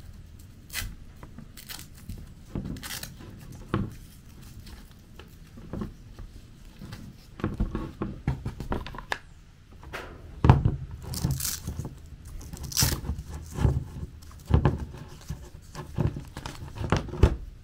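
Handling noise from temperature clamp leads being unplugged from a Fieldpiece SMAN 480 digital manifold and their thin thermocouple wires gathered up: scattered clicks, knocks and rustling, the sharpest knocks in the second half.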